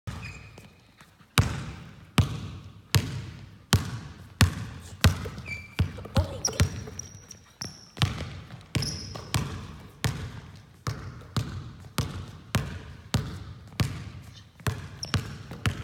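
Basketball being dribbled on a hardwood gym floor: a run of sharp bounces, about one and a half to two a second, starting about a second and a half in, each echoing in the large hall. A few short high squeaks are heard between the bounces.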